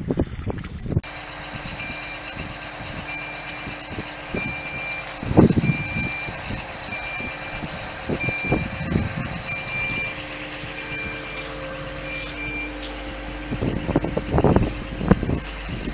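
Truck-mounted crane's warning beeper sounding a short high beep about every 1.3 seconds, stopping about 12 seconds in, over the steady running of the truck's engine while the crane works. Occasional low thumps, the loudest about five seconds in and again near the end.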